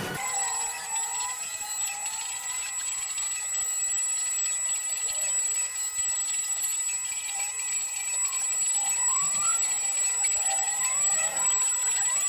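CNC wood router at work: the spindle runs with a steady high-pitched whine while the axis motors whine in a lower pitch that rises and falls as the machine moves the bit through the cut.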